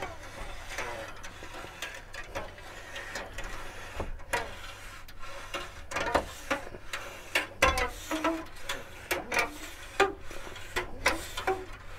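Glass-removal wire being pulled through the adhesive bead of a camper van's bonded window glass, giving irregular scrapes, clicks and short squeaks.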